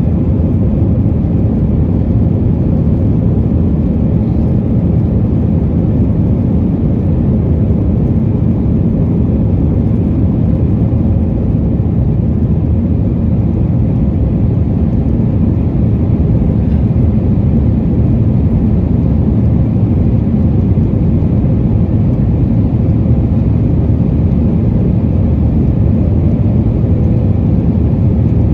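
Steady, loud cabin roar of an Airbus A320 with IAE V2500 engines, heard from inside the cabin, mostly low rumble with a faint steady tone in it.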